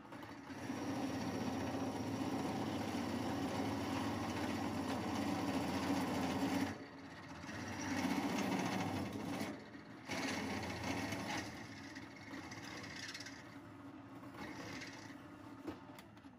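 Drill press running with a twist bit cutting through a steel leg, the cutting noise swelling and easing as the bit is fed in and backed off, with two short lulls partway through.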